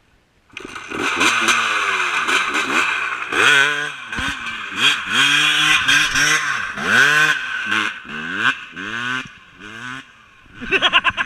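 Motorcycle engine revving hard and dropping back again and again as it is ridden, starting about half a second in.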